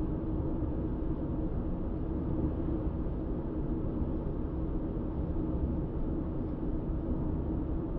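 A car cruising at highway speed: steady tyre and engine noise, low and even throughout.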